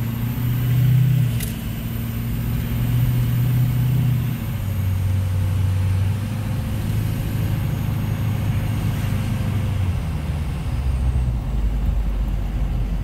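Car engine and road noise heard from inside the cabin while driving, the engine note shifting in pitch a few times as the car slows for the turn and picks up speed again. A single click about a second and a half in.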